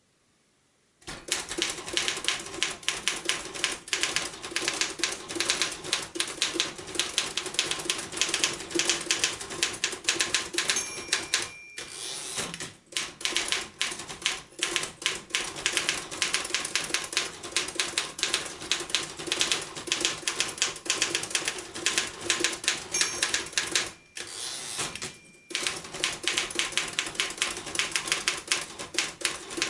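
1939 Royal KMM manual typewriter being typed on: rapid, uneven clacking of the keys and typebars, starting about a second in. Twice a short ring, the end-of-line bell, comes before a brief break in the typing for the carriage return.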